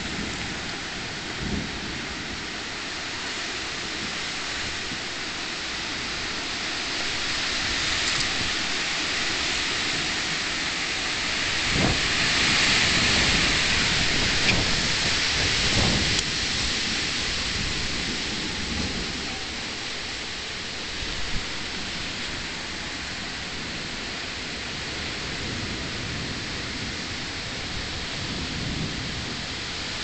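Steady rain in a thunderstorm, with wind. It swells louder for a few seconds about halfway through, and a few short sharp knocks stand out.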